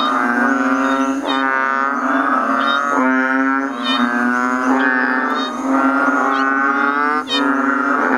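Frog giving a loud, wailing distress scream, a drawn-out cry that restarts about once a second with hardly a break.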